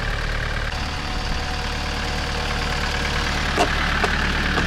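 An SUV's engine idling steadily, with two short clicks near the end.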